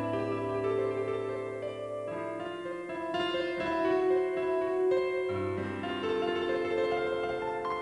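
Background piano music, held notes and chords changing every second or two.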